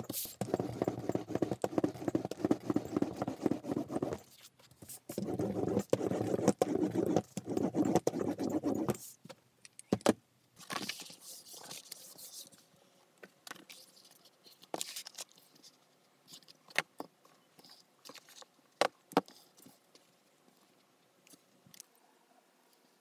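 Metal hand roller rolled back and forth over a sheet of kraft board on a cutting mat, a dense rolling rattle in two stretches over the first nine seconds or so. Then a short rustle of kraft paper being slid and smoothed by hand, followed by scattered light taps and clicks as metal pattern weights and a pen are handled on paper.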